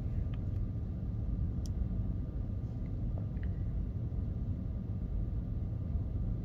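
Steady low rumble of cabin background noise inside a stationary electric SUV, with a few faint clicks.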